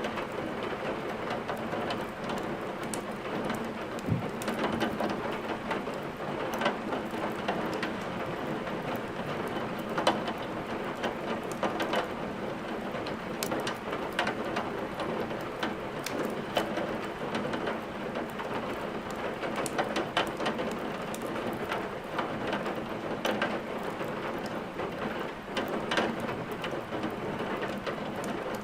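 Steady rain with frequent sharp crackles of a wood fire burning in a fireplace.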